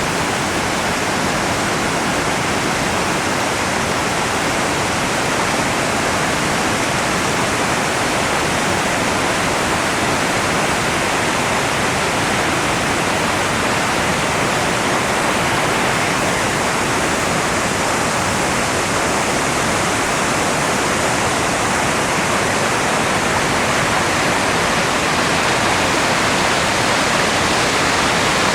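Yonako Great Falls, a tall cliff waterfall, making a steady, even rush of falling water.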